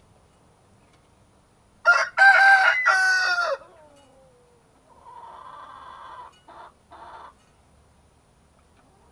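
A rooster crowing once, loudly: a short first note, then a long held note that drops away at the end. A fainter, shorter chicken call follows a couple of seconds later.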